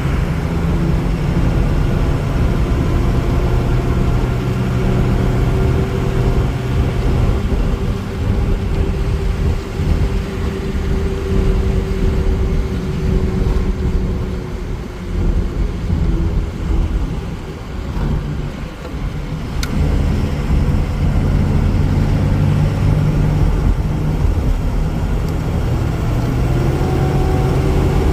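A Ford 6.0 Powerstroke V8 turbodiesel in an E350 van running on the road, heard from inside the cab with steady road noise. Near the end the engine pitch rises.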